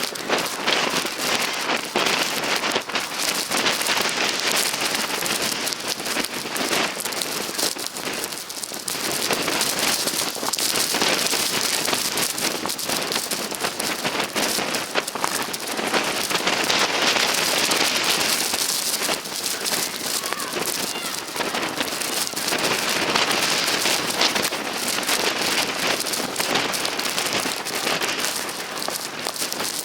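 Blizzard wind with driven snow: a dense crackling hiss that swells and eases in several gusts.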